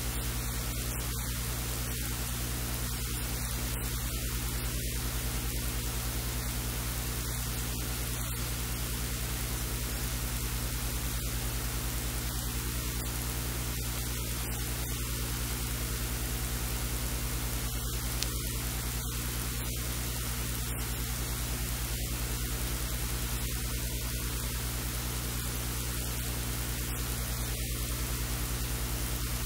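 Steady hiss with a low electrical hum beneath it, unchanging throughout: background noise of the recording itself, with no other sound standing out.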